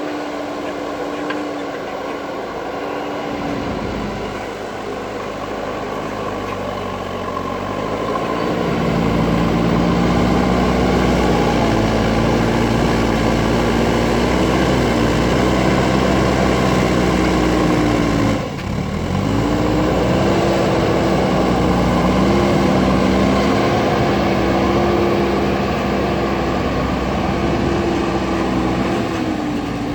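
JCB backhoe loader's diesel engine working under load, its revs dropping about three seconds in, then rising and holding high from about eight seconds in. Near the middle the revs dip sharply for a moment and pick back up.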